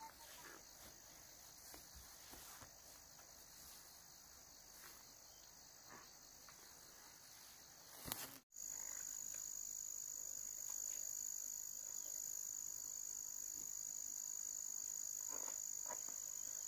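Steady, high-pitched chorus of calling insects in hillside vegetation. About halfway through it becomes louder and slightly higher, with faint rustling footsteps through grass underneath.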